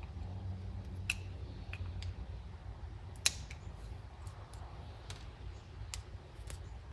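A few faint, separate clicks and ticks of small tools and parts being handled while a small-engine carburetor is taken apart, over a low steady hum.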